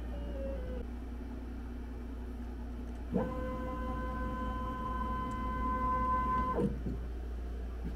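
GarageWorx CNC router's stepper motors whining as the gantry moves. In the first second the pitch glides down briefly. About three seconds in, a steady high whine of several tones starts as the machine makes a straight move, then cuts off abruptly about three and a half seconds later. A steady low hum runs underneath.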